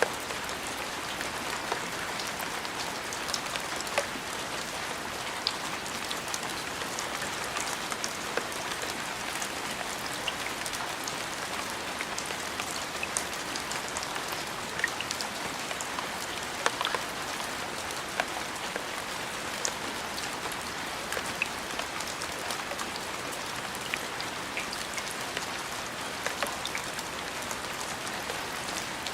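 Steady rain falling on a surface: an even, dense hiss with scattered sharp ticks of single drops striking.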